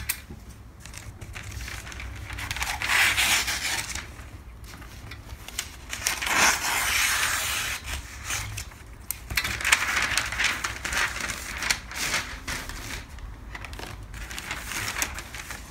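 Large sheets of pattern paper rustling and crinkling as they are lifted, shifted and smoothed on the table, in several long swells, with shears cutting through the paper partway through.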